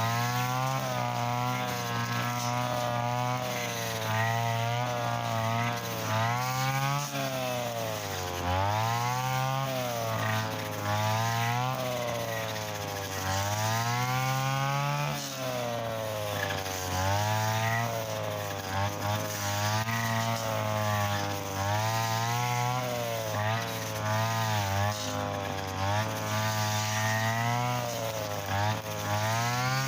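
Mitsuyama brush cutter engine running at high speed while its 2.4 mm nylon line cuts thick, stiff grass; the engine pitch sags and recovers again and again as the line bogs down in the dense stems.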